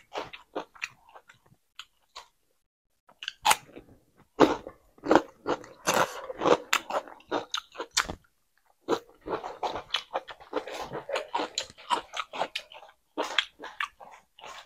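Close-miked chewing of a mouthful of rice and vegetable curry eaten by hand: a dense run of short, sharp mouth clicks and crunches, with a pause of about a second around two seconds in.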